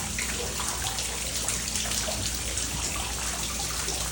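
Water running and spraying steadily from a burst water pipe that split when it froze in an unheated house.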